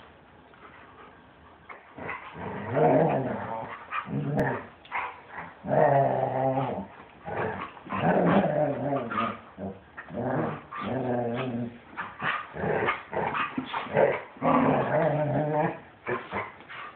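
Doodle dogs growling in play as they wrestle, a run of repeated growls of about a second each that starts about two seconds in.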